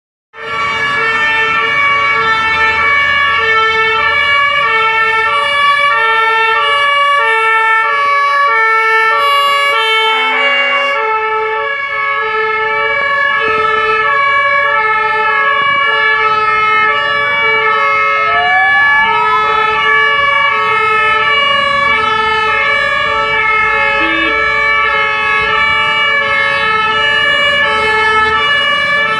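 Fire engine two-tone siren sounding continuously on an emergency turnout, switching back and forth between a high and a low pitch in a steady rhythm. A short rising tone sounds over it just past halfway.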